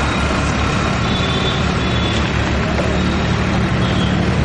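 Passenger bus passing close by and pulling away down the road: a steady, loud mix of engine and road noise with a low hum.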